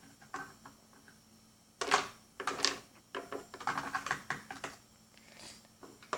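Light irregular clicking and tapping of small plastic toy figures and playset pieces being handled and moved about, in two busier clusters about two and four seconds in.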